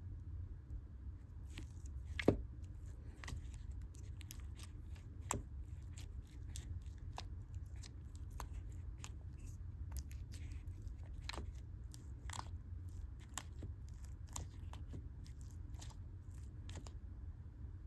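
Slime being squished and pressed by hand, making irregular small wet clicks and pops, with a louder pop about two seconds in.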